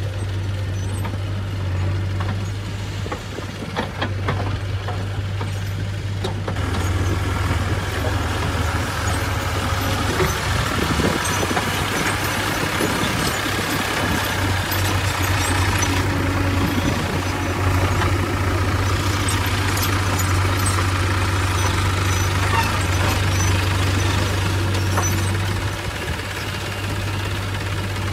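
Diesel farm tractor engine running steadily while hauling a tipping trailer, louder through the middle as the tractor drives close by. Near the end, a JCB 3DX backhoe loader's diesel engine runs as it loads soil into a trailer.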